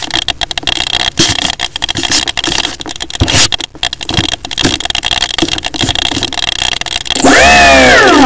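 Irregular crackling and sharp knocks of the small RC plane's airframe being handled, picked up by its onboard camera microphone. About seven seconds in, the plane's motor and propeller start with a loud whine that dips in pitch and then climbs as the throttle is worked.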